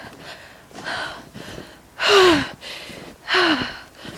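A person breathing hard: three gasping exhales about a second and a half apart, the last two loud, each with a short falling voiced tone.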